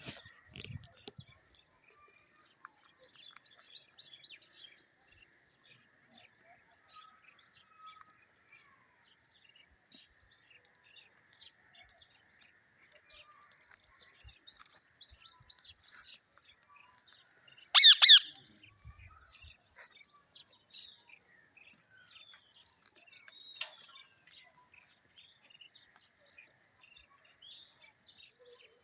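Parrot calling: two bursts of rapid, chattering high chirps, a few seconds in and again near the middle, and a loud double screech about two-thirds of the way through, with scattered short chirps in between.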